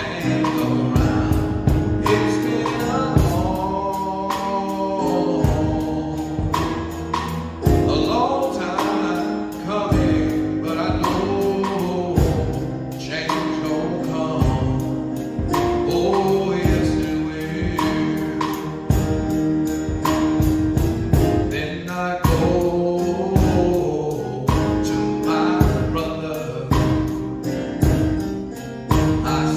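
A man singing a gospel song solo into a microphone, backed by a live band with a steady drum beat.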